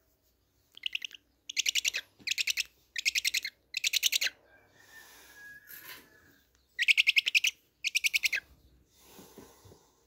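Downy Eurasian eagle-owl chick giving short, rapid rattling calls, five in quick succession and then two more a few seconds later.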